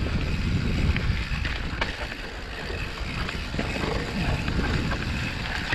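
Wind buffeting the microphone over the steady rumble of a mountain bike rolling fast down a loose dirt trail, with a few sharp clicks and rattles from the bike.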